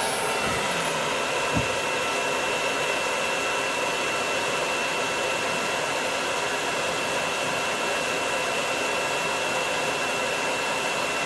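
Hair dryer blowing steadily on a dog's coat, an even rushing noise with a thin, steady high whine.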